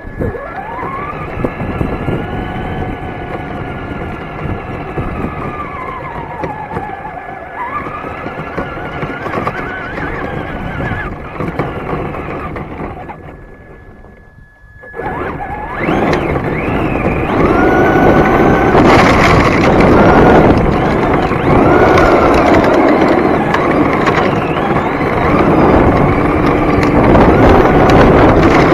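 Onboard sound of a Traxxas Slash 2WD RC truck driving: the electric motor's whine rises and falls with the throttle over rattling drivetrain and tyre noise. About halfway through the sound drops away for a moment. It then comes back louder and rougher as the truck runs on gravel.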